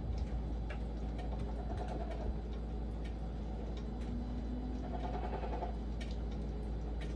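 Steady rain with scattered drops ticking irregularly, plus a couple of faint brief tones in the background.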